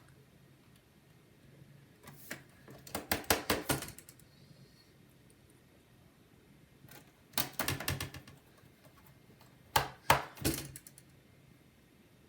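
Rattling and rapid clicking of a MacBook Air's aluminium bottom case being handled and fitted back onto the laptop, in three bursts: about two seconds in, near the middle and about ten seconds in.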